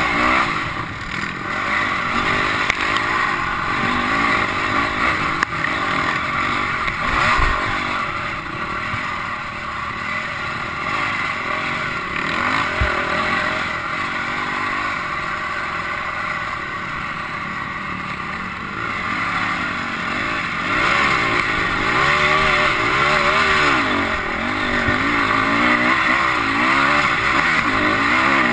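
Dirt bike engine running along a trail, its pitch rising and falling with the throttle, over steady wind and riding noise. Two brief low thumps come about a quarter and about halfway through.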